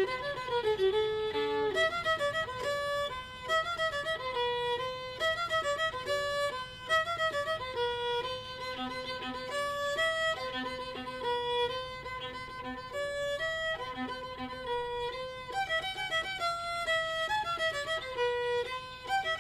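Intro music: a fiddle playing a melody of quick, stepping notes.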